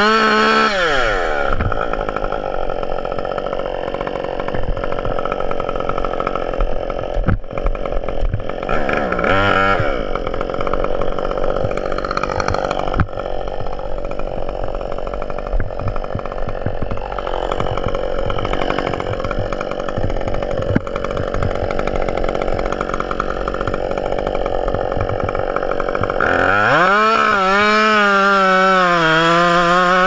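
Husqvarna gas chainsaw running. It revs high at the start, then runs rougher and less clearly pitched through the middle with one short rev, and goes back to a steady full-throttle pitch near the end as it cuts into the trunk.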